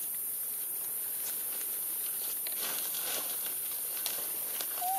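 Faint rustling and scratching in grass with a steady high hiss. Near the end, a long-tailed macaque infant gives one short, high coo that rises and falls.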